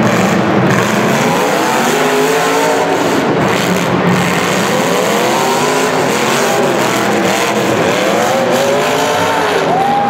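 Several demolition derby cars' engines revving at once, their pitches rising and falling over one another as they rev up and back off, over a steady din.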